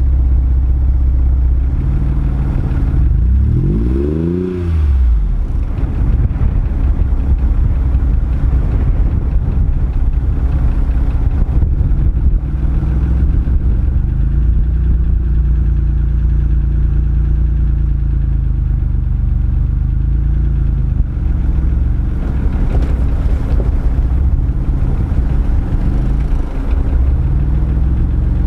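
Mercedes-Benz G-Class V8 engine running under load while the SUV is stuck in deep mud, revving up and back down once about four seconds in and again a few times more gently near the end.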